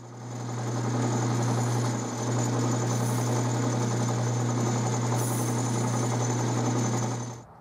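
12-inch Atlas metal lathe running with a steady, strong low motor hum and a broad mechanical whirr, turning a brass flywheel while a pointed tool scribes circles into its face. The sound dips briefly about two seconds in and cuts off abruptly shortly before the end.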